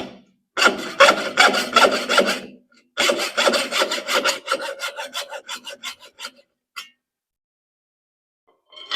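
Hand hacksaw cutting through the last of a bronze hollow bar that was partly cut on the stopped lathe, in quick rasping strokes. The strokes come in three spells with short breaks and stop about six seconds in.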